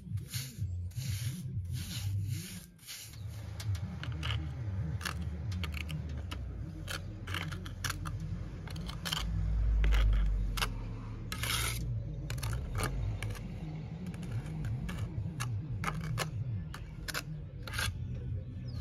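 A stiff hand brush scrubbing the top of a concrete chimney in rhythmic strokes, about two and a half a second, for the first few seconds; then a trowel scraping cement render onto the concrete in short, uneven scrapes. A low rumble swells briefly near the middle.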